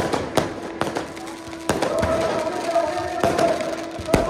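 Fireworks and firecrackers going off, about five sharp bangs in four seconds at uneven gaps, over the steady noise of a large crowd. Held pitched tones, from voices or music, carry on underneath.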